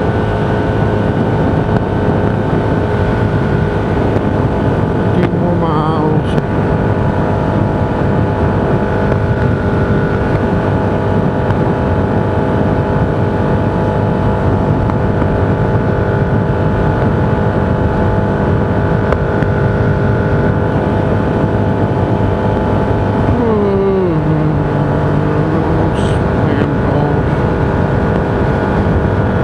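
Steady road and wind noise from a vehicle driving at speed, with a constant drone. Twice, about six seconds in and again near the end, a pitched sound falls in pitch and then levels off.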